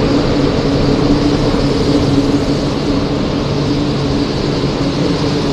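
E4 series MAX double-decker Shinkansen pulling into the platform at low speed: a loud, steady running noise of the passing cars with a low hum held through it.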